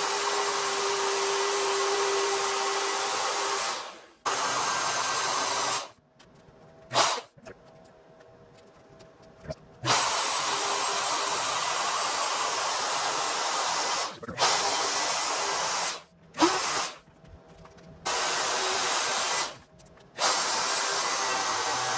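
Ryobi plunge router running at speed as it cuts freehand through a clear roof panel. It is a steady, loud noise that stops and starts several times, with short quieter gaps holding a few knocks.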